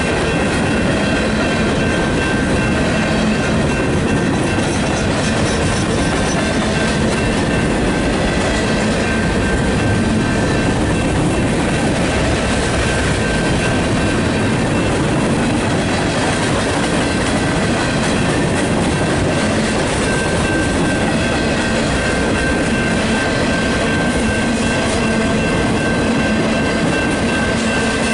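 Freight train's boxcars and covered hoppers rolling past at a grade crossing: a steady loud rumble and clatter of wheels on rail, with a few steady high ringing tones above it.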